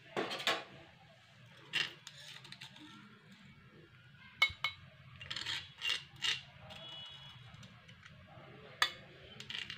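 Kitchen utensils clinking and knocking as freshly pounded spices are taken out of the pounding vessel: about eight light, separate clinks spread through, a couple of them briefly ringing.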